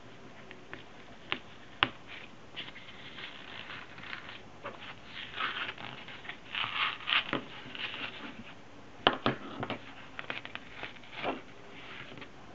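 Scrap leather glued onto bookboard being ripped and peeled away in short, irregular tearing bursts. A few sharp clicks stand out, about 2 s in and about 9 s in.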